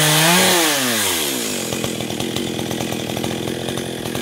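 Two-stroke chainsaw revved high, then dropping back to a steady idle about a second in.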